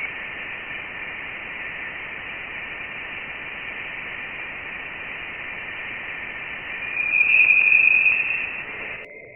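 Electronic soundtrack of steady static-like hiss with a high whistling tone over it. The whistle swells louder near the end, then everything cuts off suddenly.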